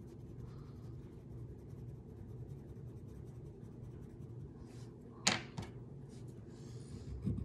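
Wax crayon rubbing on paper in faint, short strokes over a steady low room hum. About five seconds in comes one sharp click as the crayon is put down among the others on the table.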